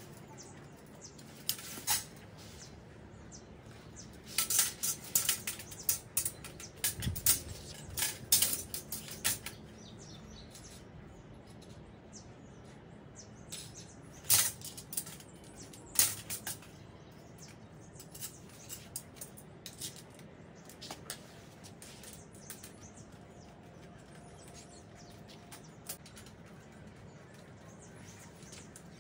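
Stainless steel kitchen rack frame and screwdriver clinking and tapping as screws are driven into the rack. There is a run of sharp metallic clinks in the first third, two more a few seconds later, then only light ticks.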